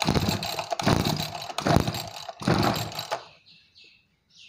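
Backpack sprayer's small petrol engine being pull-started: several quick recoil-starter pulls, a little under a second apart, crank the engine without it catching, and the pulls stop about three seconds in. The engine will not start; its carburettor air setting is still being adjusted.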